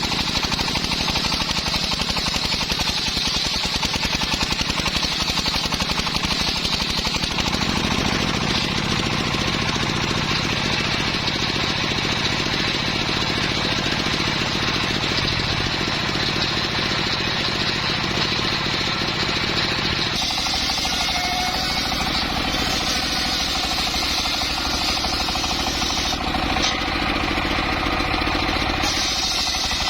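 Engine-driven wood saw of a mobile sawmill running with a rapid, steady pulsing, its note shifting about seven seconds in and again about twenty seconds in.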